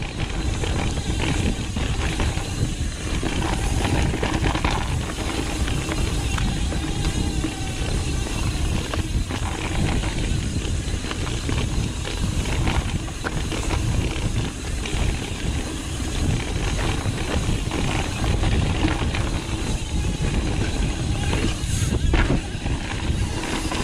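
Pivot Firebird 29 full-suspension mountain bike riding fast down a dirt flow trail: a steady rumble of wind on the microphone and tyres rolling over dirt, with scattered clicks and rattles from the bike over bumps.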